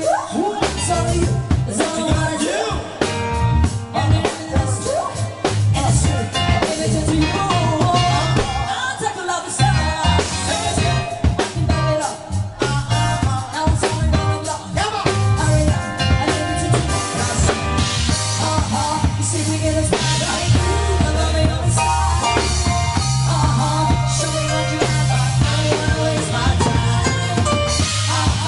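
Live band playing an up-tempo dance number: electric keyboard, drum kit and bass under a singer's voice.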